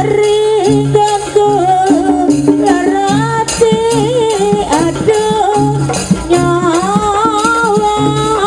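Live jaranan sampak accompaniment: a wavering, ornamented melody line over low gong-chime notes repeating in short, even strokes, with rattling percussion.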